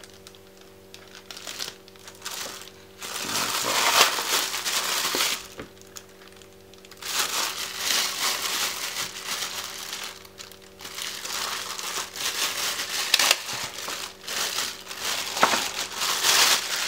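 Clear plastic wrapping crinkling and rustling as it is pulled off a camera lens and lens hood, starting about three seconds in and going on in long stretches with short pauses.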